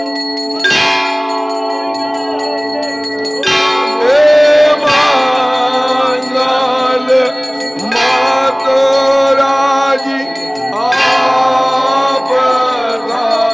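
Temple bells ringing on and on through an aarti, with sharp strikes now and then. Over them come devotees' voices chanting loudly in three long calls, starting about four, eight and eleven seconds in.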